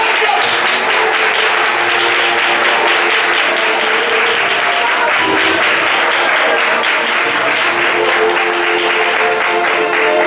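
A crowd clapping their hands over music with steady held chords.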